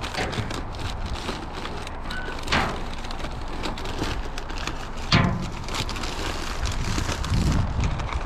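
Plastic trash bags rustling and crinkling as a gloved hand rummages through them inside a dumpster, with two louder knocks a few seconds apart.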